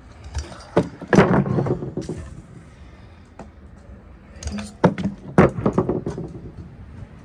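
Stunt scooters clattering and rattling on pavement: wheels rolling over rough concrete and asphalt with sharp metal clacks from the decks. The sound comes in two bursts, the first about a second in and the second around five seconds in.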